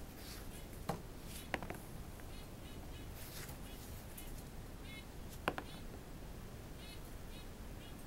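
A hollow metal D20 die being thrown and handled on an oilcloth-covered surface: three sharp clicks, the first two about a second apart near the start and the third about five and a half seconds in. Faint high chirps repeat in short runs throughout.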